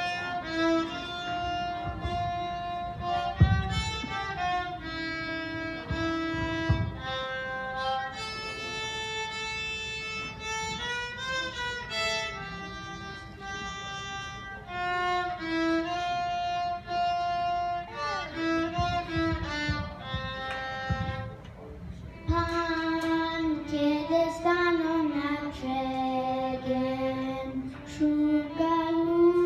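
Solo violin played live, a bowed melody of changing notes. Near the end the violin stops and a girl sings into a microphone.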